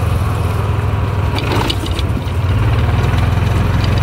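Small engine of an open golf-cart-type vehicle running steadily as it drives along a paved road, a constant low drone.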